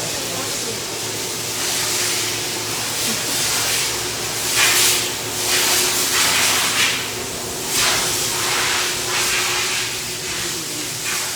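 Machine-shop background noise: a steady hiss that swells in several louder surges of a second or so, over a faint steady hum.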